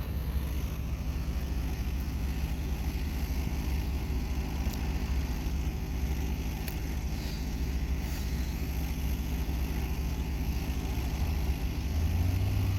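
Steady low rumble of road traffic and vehicle engines, with the low hum growing louder near the end.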